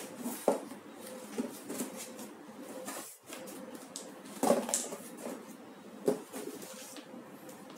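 Scattered knocks and clicks of hard objects being handled, with the loudest knocks about half a second in, around four and a half seconds in, and about six seconds in. No drill motor is running.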